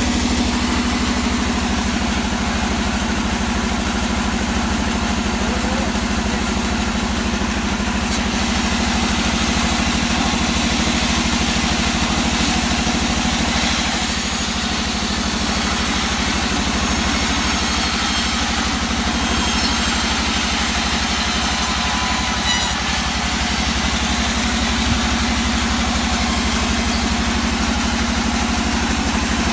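An engine running steadily at idle, with an extra high hiss for about ten seconds in the middle.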